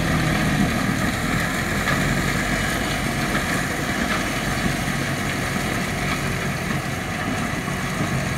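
Tractor-driven PTH stone crusher running as it crushes the gravel of a track, with a rattle of stone over the steady drone of the tractor's engine under load.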